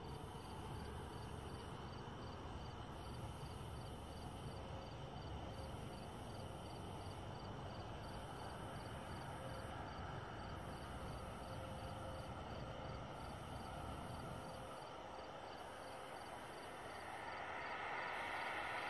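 Night insects calling steadily: an even run of short chirps, about two or three a second, over a pulsing high buzz and a low rumble. Near the end a car approaches and the hiss of its tyres on the wet road grows louder.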